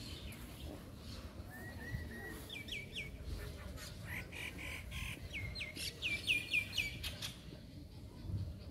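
Small birds singing in the trees: clusters of quick, repeated high chirping notes, loudest in the second half.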